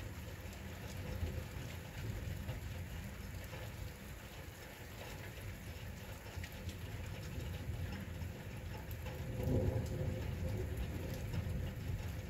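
Rain falling steadily, with individual drops ticking on nearby surfaces and a low rumble swelling about nine seconds in.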